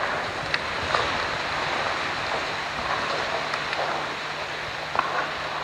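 Steady rushing noise of wind on the microphone, with a few sharp clicks and a faint low hum coming in about halfway.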